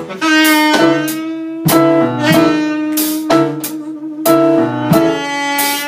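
Live band playing an instrumental passage with no singing: saxophone and electric keyboard, with sharp accented hits about once a second.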